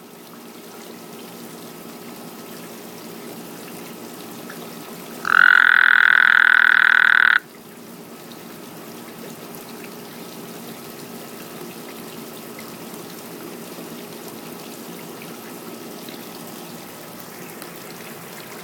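A frog croaks once, about five seconds in: a loud, even call held for about two seconds. Under it runs a steady trickle of water.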